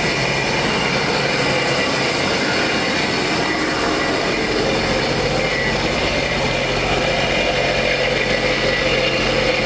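Sea-Doo's Rotax four-stroke engine running at a steady idle while being warmed up, with water flushed through its cooling system.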